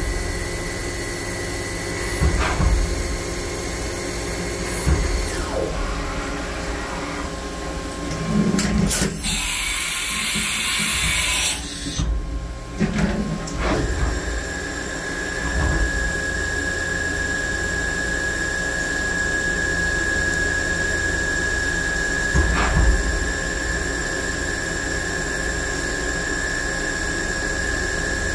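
Milling machine cutting an optic pocket for an RMR sight into a steel Glock 34 slide: the spindle gives a steady high whine with a few sharp clicks. About nine seconds in comes a loud hiss lasting some two and a half seconds, and the whine settles to a slightly lower pitch a little after that.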